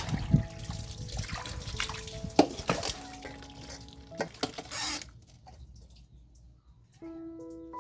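Water dripping and trickling, with many small splashy drops for about five seconds, then dying down. Soft held musical notes sound underneath and come through more clearly near the end.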